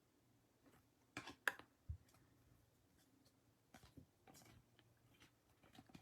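Near silence with a few faint rustles and clicks of trading cards being handled and slid apart, loudest about a second and a half in.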